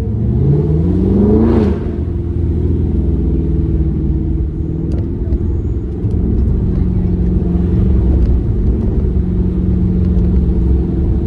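Car engine accelerating, its pitch rising for about a second and a half and then dropping at a gear change, followed by a steady engine drone and rumble while cruising.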